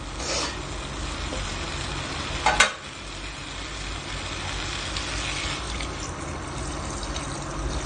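Taro pieces and masala frying in a stainless steel kadai with a steady sizzle, and one sharp knock about two and a half seconds in. Water is poured into the hot pan near the end.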